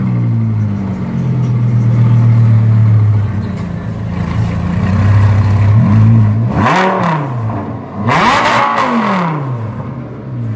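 Lamborghini supercar engine idling steadily, then revved twice near the end, each rev climbing and dropping back to idle.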